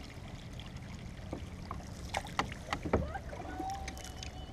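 Canoe gliding: scattered small knocks and clicks of paddles and water against the hull, over a low steady rumble.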